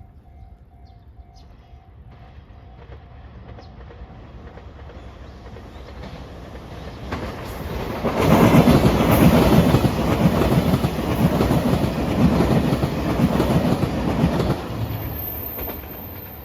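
Railway level-crossing bell ringing faintly as a train approaches. The train grows louder and passes close by for about six seconds with rapid wheel clatter over the rails, then recedes.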